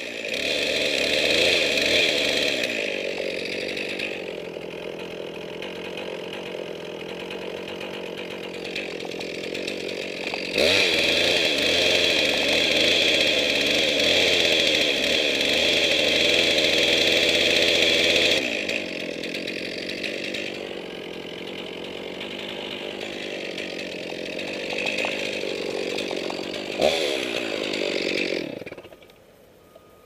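Chainsaw cutting into an elm trunk, running hard in three long spells (the first few seconds, from about ten to eighteen seconds in, and again near the end) and easing off between them, then stopping just before the end.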